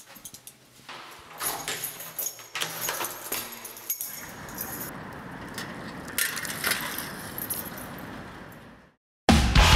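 Keys jangling and clicking for the first few seconds, followed by a steady hiss of street background. Near the end it cuts off and loud punk rock with drums starts.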